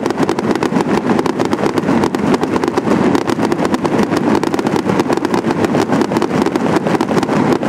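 Firework fountains firing from the river, a steady rushing spray of sparks with dense, rapid crackling all through.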